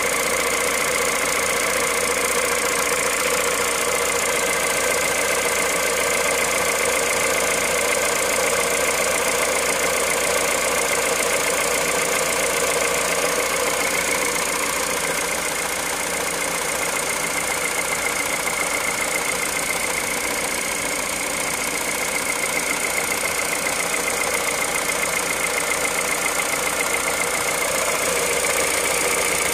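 Car engine idling cold, a steady mechanical running with the cold-engine noise the owner is recording at 65,000 km; it eases off slightly for a few seconds past the middle.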